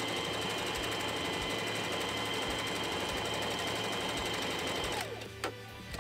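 Electric domestic sewing machine running steadily as it stitches a seam through thick felt, then slowing with a falling pitch and stopping about five seconds in, followed by a click.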